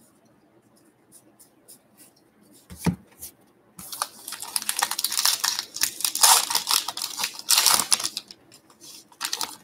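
A trading-card pack wrapper being torn open and crinkled: a knock about three seconds in, then about four seconds of crackling and tearing, and one more short crinkle near the end.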